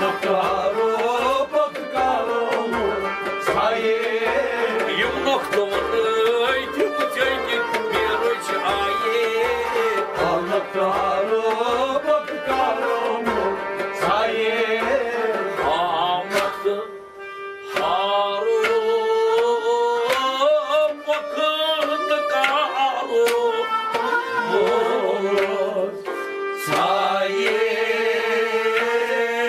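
Kashmiri folk song: a man singing a wavering melody over a clay pot drum struck by hand at about two beats a second, with a string instrument playing along. The music drops away briefly about 17 seconds in, then resumes on a long held note.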